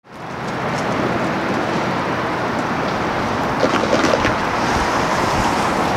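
Steady road traffic noise, with a short cluster of light clicks about three and a half seconds in.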